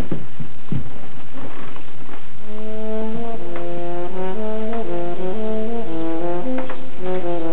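Brass instruments playing a short musical cue of held chords that change every half second or so, starting about two and a half seconds in, after a couple of short knocks.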